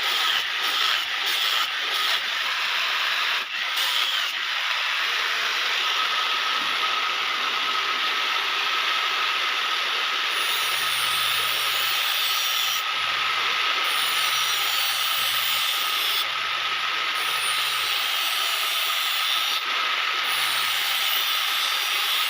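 A few sharp knocks, then a steady hissing machine noise with a faint steady whine.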